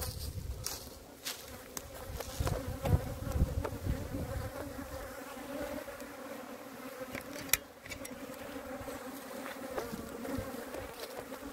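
Steady buzzing hum of a large colony of Italian honeybees swarming over an opened hive box. A few sharp clicks and crackles break through, the loudest about seven and a half seconds in.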